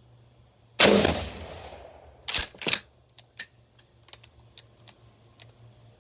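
A shotgun firing a handloaded mini slug with a tail wad: one loud shot with a long ringing tail. About a second and a half later come two sharp clacks close together, then a few light clicks. The shooter feels this load is a little overpressured.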